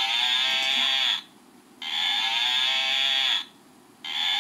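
A plush toy cow's electronic sound box mooing, the same tinny recorded moo playing over and over, each about a second and a half long with a short gap between.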